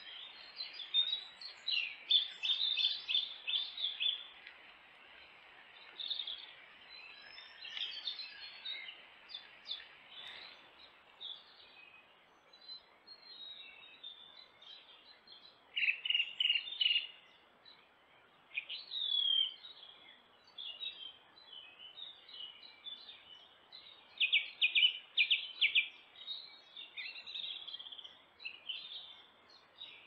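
Woodland songbirds singing, with several quick trills of rapidly repeated notes, the loudest a few seconds in, about halfway and again near the end, over a faint steady hiss.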